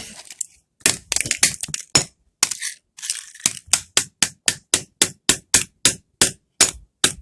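An old plastic flip phone being smashed with repeated hard blows, a few scattered cracking strikes at first, then a steady run of about three to four strikes a second.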